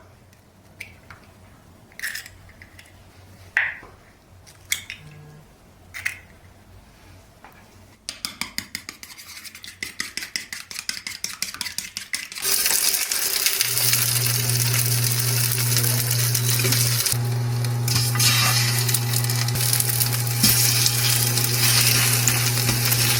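Home cooking. First a few clinks and taps of utensils on dishes, then a quick run of rapid strokes in a bowl. About halfway through, food starts frying in a pan: a loud, steady sizzle, with a low hum joining it a second later.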